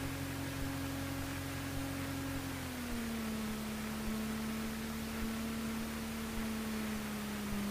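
Cessna 150's four-cylinder Continental O-200 engine running at about 1,000 RPM while taxiing, heard as a steady droning hum. Its pitch drops slightly about three seconds in as the revs ease off.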